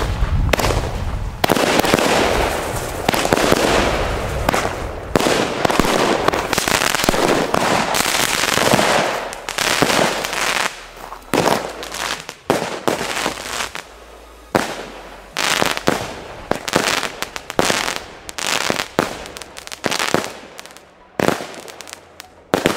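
Consumer firework battery firing: a dense run of shots launching and bursting for about the first ten seconds, then separate sharp bangs and crackles that thin out and fade toward the end.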